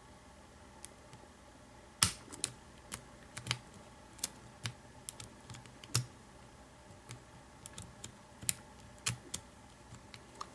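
Irregular sharp metallic clicks and taps of a hook pick working the pin stack inside an American 700 series padlock's keyway, under heavy pry-bar tension. The first click, about two seconds in, is the loudest.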